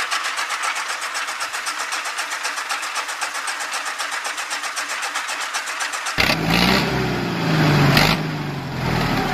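Miniature belt-driven flour mill running and grinding wheat, a rapid, even rattle of about ten pulses a second. About six seconds in the sound changes abruptly to a louder, deeper mechanical running.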